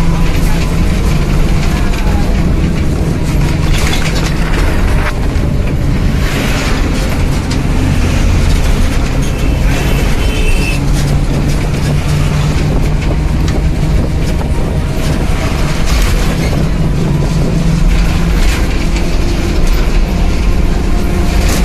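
Bus engine running steadily with a loud, continuous low rumble.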